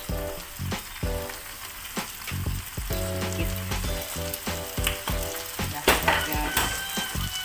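Rice vermicelli and vegetables sizzling in a metal wok while a metal spatula stirs them, with frequent clicks and scrapes of the spatula against the pan. The sharpest knocks come about six seconds in, and a low hum comes and goes underneath.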